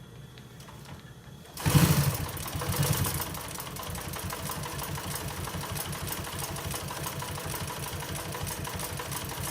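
Industrial sewing machine on a clutch motor: a faint steady motor hum, then about a second and a half in the clutch engages and the machine starts stitching through several layers of denim, loudest at the start and then settling into a steady rapid stitching rhythm.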